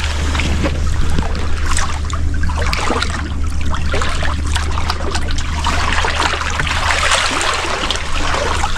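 Sea water sloshing and trickling among shoreline rocks, a continuous watery hiss full of small crackles that swells about two-thirds of the way through. Wind rumbles on the microphone underneath.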